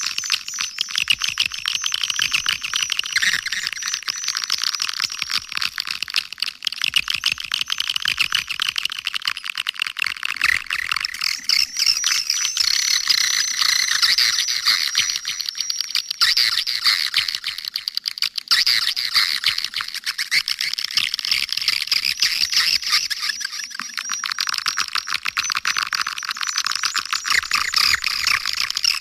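Swiftlet lure call: a dense chorus of edible-nest swiftlets twittering and chirping rapidly without a break, thin-sounding with no low end. It is the playback sound used to draw swiftlets into a swiftlet house.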